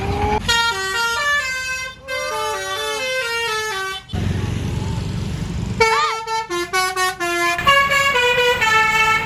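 Basuri-style musical bus air horn ('telolet') playing a tune of stepped notes, in two phrases with a short break near two seconds, then a gap of engine and traffic rumble before it plays again from about six seconds in.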